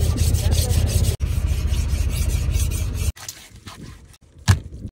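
Knife blade drawn back and forth on a sharpening stone in quick rasping strokes, over a low steady drone. After about three seconds this gives way to a quieter stretch with one sharp knock of the knife chopping through fish on the wooden deck.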